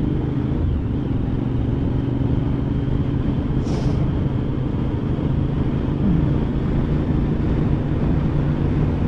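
Motorcycle engine running at a steady cruise under a steady rush of wind and road noise.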